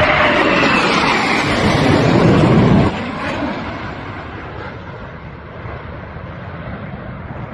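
Tejas jet fighters passing overhead: a loud turbofan roar with a slightly falling whine for about three seconds, then a sudden drop in level and a fading roar as the aircraft move away.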